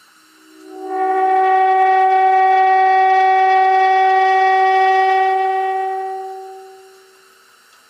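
A loud, steady humming drone with strong overtones, like a held horn note. It swells in, holds for about four seconds and fades away. It is a recurring vibration hum inside a hunting box stand, which the hunter puts down to "micro vibrations" and says happens every single time.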